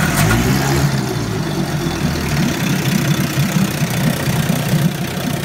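1956 Evinrude Fastwin 15 hp two-cylinder two-stroke outboard motor running steadily in a test tank on a test run after a tune-up, with water churning around its lower unit.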